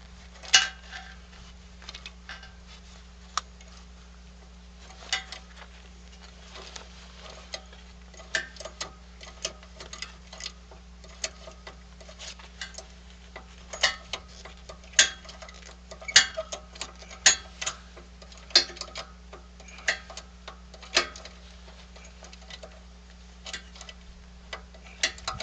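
Hydraulic bottle jack lying on its side being pumped by its handle: sharp metallic clicks and knocks at uneven spacing, roughly one a second, as the jack slowly pushes a steel part.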